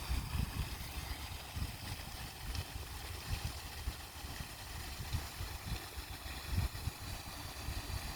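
A motor running steadily, with low, gusty rumbling of wind on the microphone.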